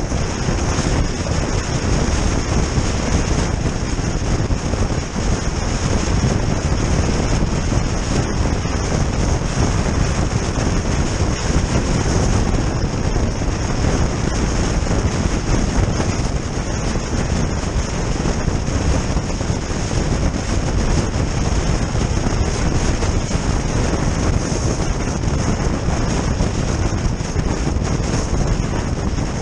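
Wind buffeting the microphone of a GoPro Hero Session mounted outside a moving car, over road and tyre noise from driving at speed. The noise is steady and even, heaviest in the low end.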